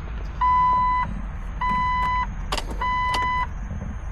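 Jeep dashboard warning chime beeping steadily, three even beeps about a second apart, over a steady low rumble, with two sharp clicks in the second half as the HVAC control is switched. No blower motor is heard: the blower is dead in every setting.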